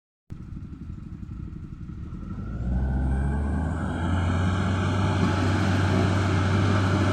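Toyota Dyna truck engine running, at first quieter and uneven, then louder about two and a half seconds in and steady from there. The owner says the engine lacks power and coughs.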